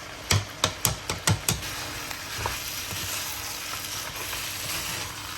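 Rice frying and being stirred in a hot pot of oily lamb. A quick run of about six sharp knocks against the pan comes in the first second and a half, then a steady sizzle.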